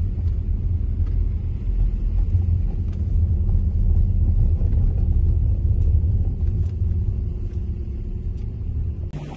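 Car driving along a street: a steady low rumble of road and engine noise.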